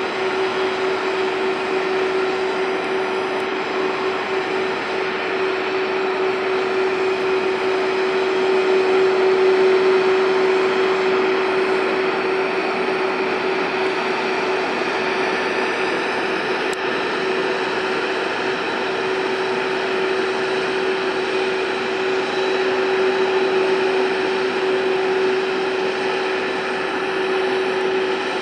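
Jet airliner engines running steadily: a constant drone with one held tone over a rush of noise, swelling slightly about ten seconds in and again later.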